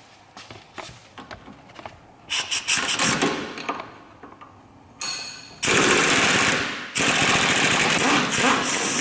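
Pneumatic impact wrench hammering on the 18 mm bolt of the lower shock absorber mount, undoing it. A short burst about two and a half seconds in, then two long runs of rapid hammering in the second half with a brief break between them.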